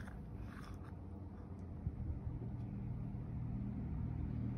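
A vehicle engine running with a steady low hum that slowly grows louder.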